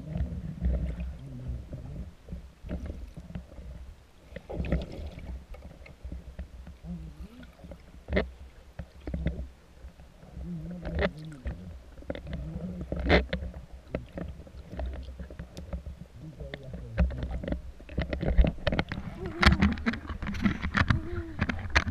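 Water sloshing and bubbling, heard muffled through a waterproof camera housing: a low rumble with scattered sharp clicks and splashes, and faint muffled voices.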